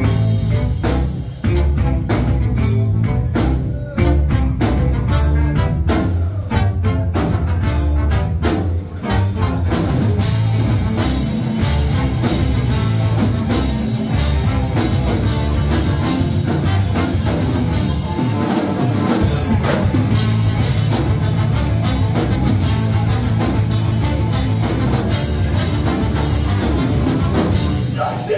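Live rock band playing loud and continuous, with drum kit and guitar; sharp drum hits come thick in the first few seconds.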